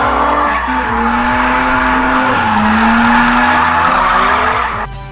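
Tyres of a Tesla Model 3 Performance squealing and scrubbing as the car drifts sideways on concrete, with a wavering pitch, over background electronic music. The tyre noise cuts off just before the end.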